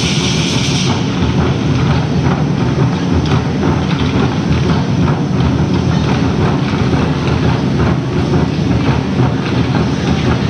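Lion dance drum and cymbal accompaniment heard across a stadium: evenly spaced cymbal clashes stop about a second in, leaving a dense, steady low rumble of drumming with faint strikes through it.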